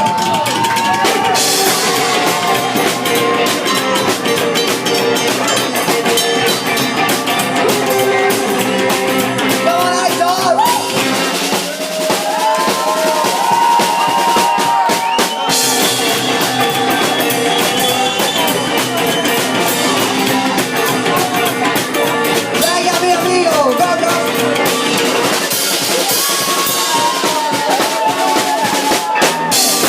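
Live rock band playing an instrumental break: a drum kit keeps a steady beat while a lead line of sliding, bending notes plays over the band.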